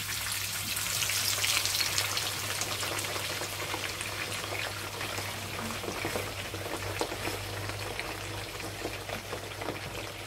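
Slices of raw potato frying in plenty of hot olive oil in a frying pan: a steady sizzle with many small crackles and pops, loudest in the first couple of seconds as the slices go in.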